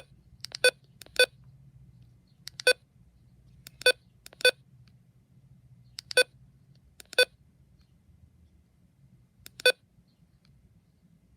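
Button-press beeps from a Midland HH54VP handheld weather radio being set up. There are about nine short, identical electronic beeps at uneven intervals, as its keys are pressed one at a time.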